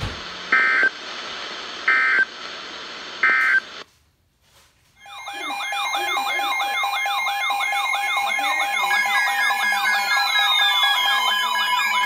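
NOAA weather radio sends three short warbling SAME data bursts over broadcast hiss, the code that ends the message. After a brief near-silent gap, several weather alert radios start sounding their alert alarms at once: warbling siren-like tones, steady beeps and repeated falling sweeps, signalling a new warning.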